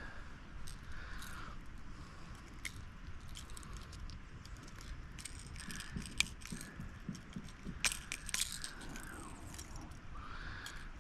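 Small metallic clicks and jangling from a hard jerkbait's treble hooks and hardware as a small fish is handled and unhooked, in scattered ticks that grow busier and louder around the middle.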